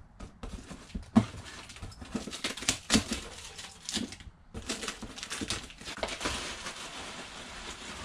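Cardboard box of an iHome speaker being opened and its packaging handled: irregular knocks and taps, then a steady rustle of packaging over the last few seconds.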